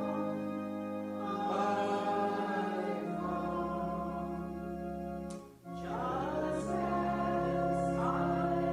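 A congregation singing a hymn together over sustained organ chords, with a brief pause between lines about five and a half seconds in.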